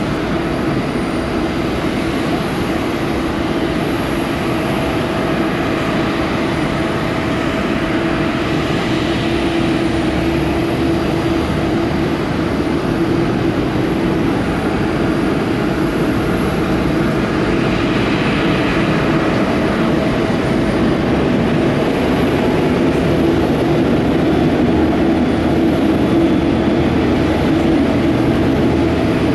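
Boeing 747 airliner's four jet engines running with a steady drone and low hum, growing slightly louder in the second half.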